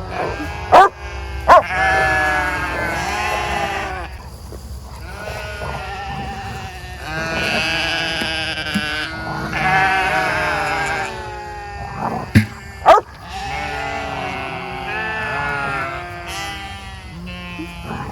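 Flock of sheep bleating, many calls overlapping, hungry and calling for their breakfast as they wait to be let onto fresh pasture. Four sharp knocks cut in, two within the first two seconds and two more about twelve seconds in.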